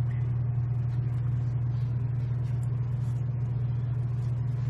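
Refrigerated drink vending machine humming steadily at a low pitch, its cooling unit running.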